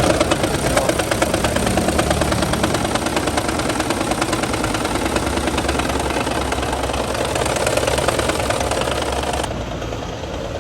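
Toyota Prius petrol engine running with a fast, even pulsing beat, on a car logging a cylinder 3 misfire code (P0303). Near the end the sound eases off and gets duller.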